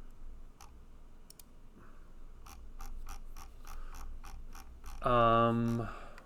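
Mouse scroll wheel ticking in a quick run of clicks as a web page is scrolled, about five clicks a second. Near the end a man gives a short voiced 'hmm', the loudest sound.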